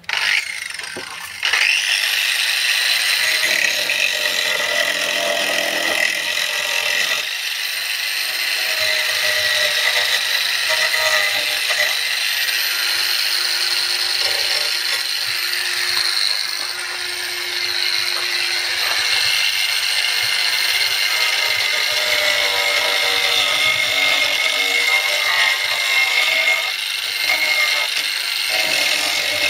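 Electric angle grinder starting up, its whine rising over the first couple of seconds, then running steadily as it grinds, a loud high whine with a slight waver in pitch.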